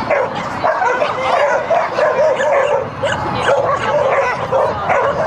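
A dog barking and yipping excitedly without a break, several short high calls a second.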